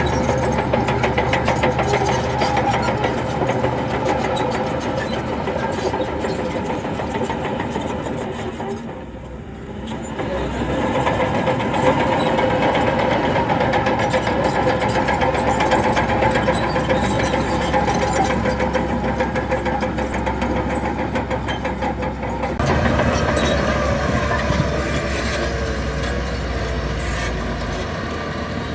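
Heavy diesel earthmoving machinery running steadily: bulldozer and dump-truck engines. The sound dips briefly about nine seconds in, then changes character about three quarters of the way through, with more low rumble.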